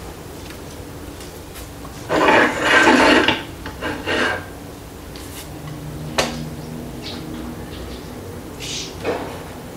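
Rough scraping and rubbing of cookware being lifted and handled, loudest about two to three and a half seconds in, then a sharp click and a brief scrape near the end as food is served.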